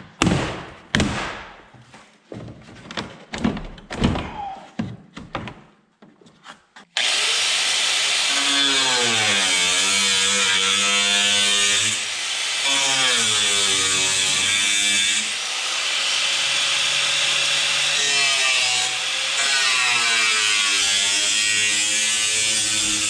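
A few seconds of scattered clicks and knocks from the pickup's plastic door trim panel being handled, then an electric angle grinder starts suddenly and cuts into the thin, cracked sheet metal around the door latch. Its whine dips and recovers as the disc bites, with two short breaks in the cut.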